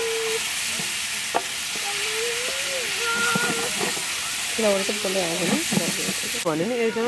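A large aluminium stockpot of stew being stirred with a ladle over a fire, with a steady hiss of boiling and steam that drops away near the end. Wavering pitched calls sound over it about two seconds in and from about four and a half seconds on.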